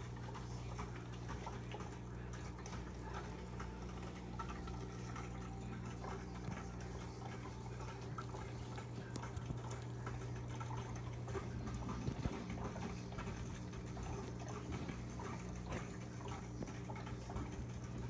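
Aquarium running: a steady low hum from its pump, with water bubbling and trickling and scattered small pops and ticks.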